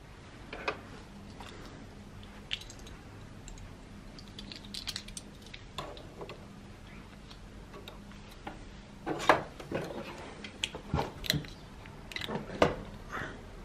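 Small hard plastic clicks and taps of Playmobil dollhouse furniture pieces being set down and handled, scattered at first and coming in a quick cluster of louder clicks in the last few seconds.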